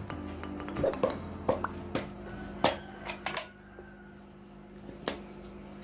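Hard plastic clicks and clacks from a cordless impact wrench and its battery pack being handled: several sharp knocks in the first three and a half seconds, then one more a little before the end.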